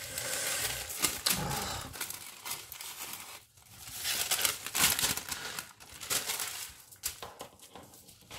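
Thin decoupage paper rustling and crinkling as it is handled, folded and cut with scissors, loudest about a second in and again around four to five seconds in.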